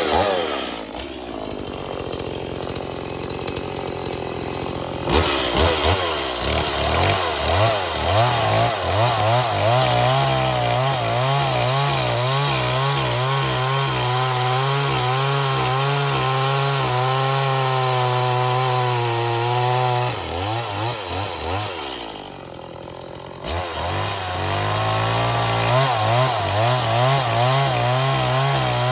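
Stihl MS180 two-stroke chainsaw running, revved up about five seconds in and held at high revs with a wavering pitch. It drops back to idle for a couple of seconds around twenty seconds in, then revs up again.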